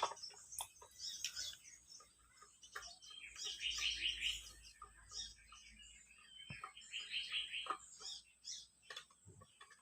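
Swiftlet twittering calls: two trilled bursts of chirps, about three and a half seconds and seven seconds in, with scattered short chirps and clicks between them.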